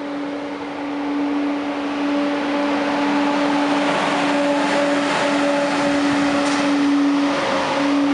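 TGV Atlantique high-speed train pulling into the station past the platform. Its power car gives a steady droning tone with overtones over the rolling noise of the train, which grows louder over the first few seconds as it nears.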